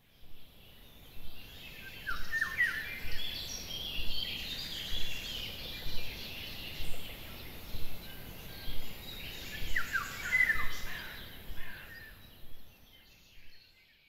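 Birds chirping in a dawn-chorus-like ambience: many short overlapping calls and quick falling whistles over a faint outdoor noise bed. The sound fades out near the end.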